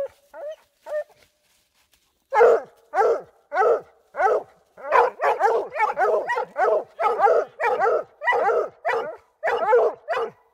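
Two dogs barking at the base of a tree: a few barks, a pause of about a second and a half, then steady rapid barking about two barks a second, each bark falling in pitch. This is the treeing bark that hunting dogs give at a tree.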